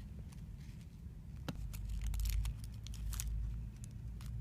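Plastic squishy packaging crinkling as it is handled, in scattered short crackles and clicks.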